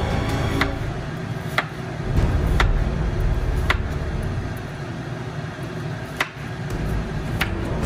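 Sharp knocks or taps about once a second at uneven spacing, over a steady low rumble.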